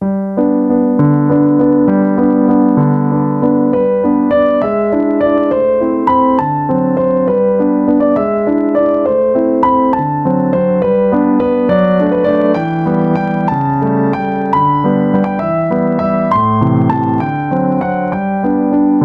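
Background piano music playing a steady flowing melody, starting abruptly after a moment of silence.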